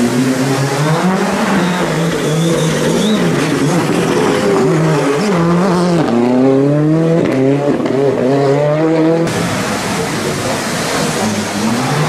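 Ford Fiesta rally car's turbocharged four-cylinder engine revving hard through a tight corner, its pitch rising and falling with throttle and gear changes. About six seconds in it accelerates through several gears, the pitch climbing in steps, until the sound cuts off abruptly near nine seconds.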